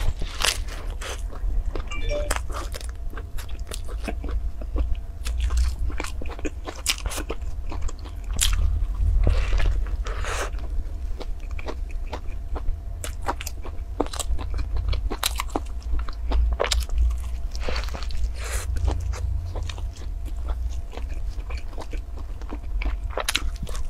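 Close-miked biting and chewing of a thick toast sandwich with lettuce leaves: irregular crisp crunches and moist chewing throughout, over a steady low rumble.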